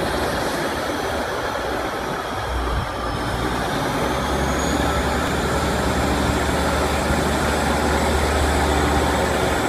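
East Midlands Trains Class 156 and Class 158 diesel multiple units departing, their underfloor diesel engines running with a steady low drone. The drone strengthens about three seconds in and builds slightly as the train moves off. A faint high whine dips and then rises above it.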